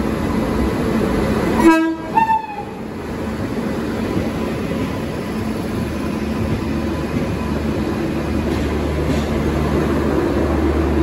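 A train horn gives a short blast about two seconds in, followed at once by a brief toot that falls in pitch. A steady low rumble of rail traffic runs underneath and grows heavier in the last few seconds.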